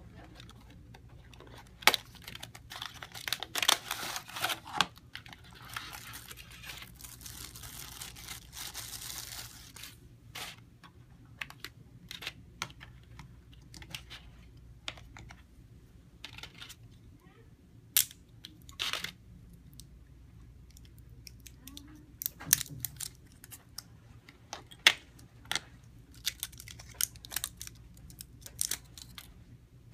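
Unboxing handling noises: a cardboard box opened and a stretch of plastic bag rustling for several seconds, then scattered sharp clicks and taps as the battery cover of a small plastic digital pocket scale is opened and AAA batteries are pressed into place.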